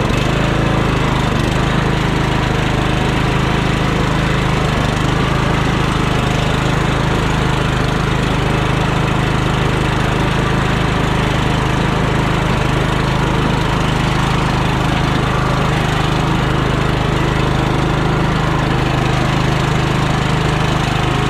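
Troy-Bilt Pony lawn tractor's engine running steadily as the tractor drives across the lawn.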